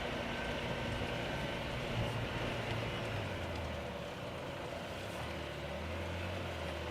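A vehicle engine running steadily, its low hum shifting pitch a few seconds in.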